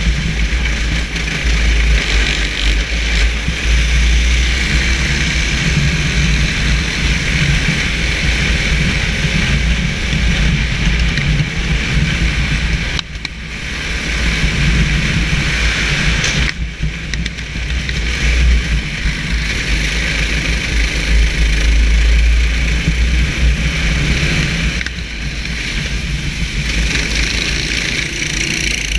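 Racing kart engine running hard at speed, heard from on board with wind and wet-track tyre noise over it. The engine note drops briefly three times, where the driver lifts off for corners.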